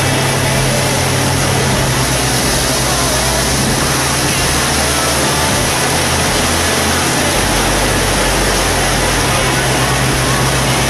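Motorboat engine running steadily at speed while towing an inflatable tube, with a constant low drone under a loud, even rush of wind and water.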